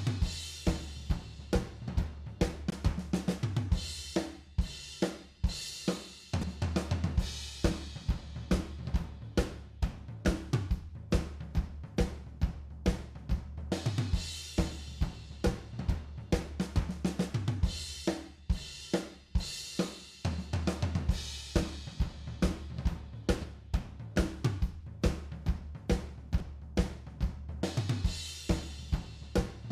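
A drum kit with kick, snare, hi-hat and cymbals playing a steady, busy groove over a bass holding low notes that change every few seconds.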